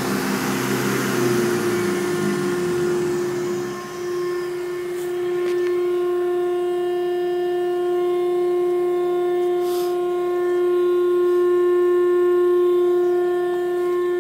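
Log lathe's notching/smoothing cutter head: rushing wood-cutting noise that dies away over the first few seconds. Then the machine runs free, not cutting, with a steady pitched hum.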